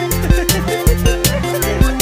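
Background music with a steady, driving beat and a bass line.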